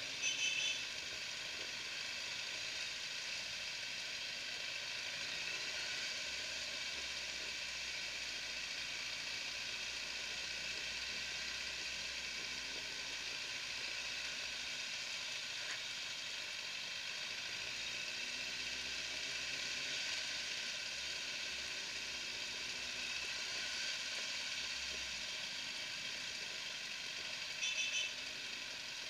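Steady hiss of wind and road noise on a motorcycle-mounted camera riding among a group of motorcycles, with faint engine sounds rising and falling underneath. A brief, loud, high-pitched beep sounds at the very start and again about a second before the end.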